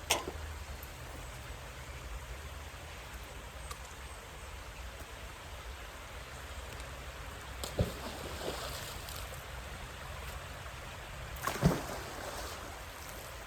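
Water running steadily under a low rumble. There are two sharp knocks, about eight and twelve seconds in, each followed by a short splashy rush.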